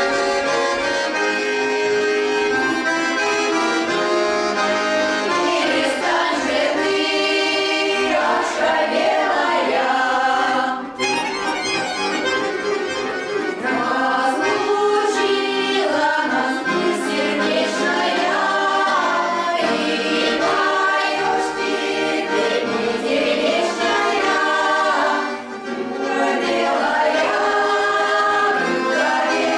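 A folk choir singing a Russian song in chorus to accordion accompaniment, the voices pausing briefly about eleven seconds in.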